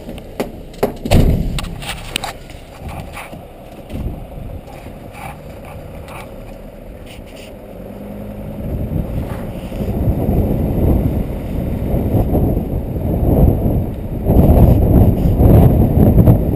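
Car moving slowly, with wind buffeting the microphone: a rough, uneven rumble that grows louder from about halfway. A few sharp knocks in the first few seconds.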